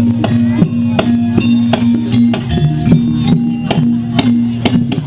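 Javanese jaranan ensemble music in the gamelan style: metal percussion struck in a regular beat of about three strokes a second, each note ringing on, over a held low tone.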